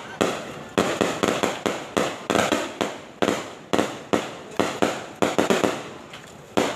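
Firecrackers going off in a rapid, uneven run of sharp bangs, several a second, each dying away quickly before the next.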